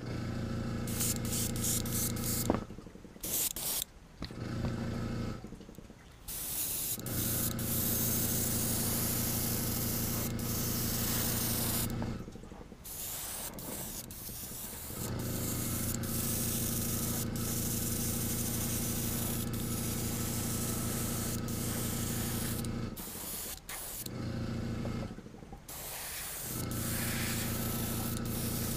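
Airbrush spraying paint onto a lure in short hissing bursts, over the steady hum of an electric air compressor. The hum drops out four times.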